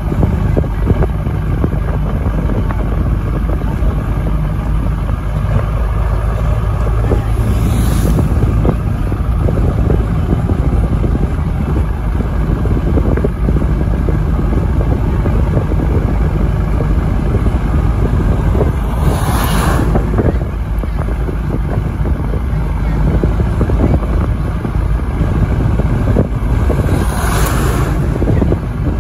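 A vehicle travelling along a road: a steady low rumble of engine and road noise with wind on the microphone. Three brief whooshes come at intervals, the last near the end.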